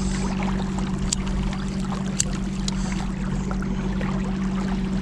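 Motorboat engine running at a steady pitch, with water rushing along the hull and a few short sharp clicks.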